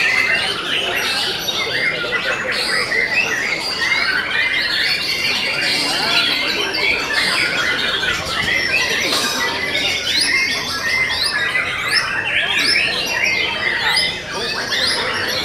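White-rumped shamas (murai batu) singing at once, a dense unbroken chorus of quick overlapping chirps, trills and whistles with no pauses.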